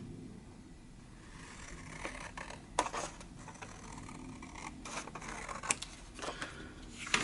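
Scissors cutting paper, with paper rustling and several sharp snips and clicks scattered through.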